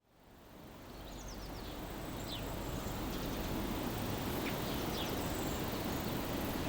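Countryside ambience fading in from silence: a steady low background noise with small birds chirping briefly several times.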